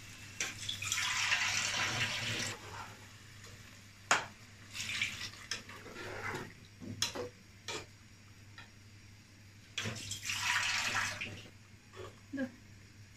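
Beef curry in thin, watery gravy being stirred with a spatula in a non-stick pot, the liquid sloshing and splashing in two longer spells, with a few sharp knocks of the spatula against the pan in between.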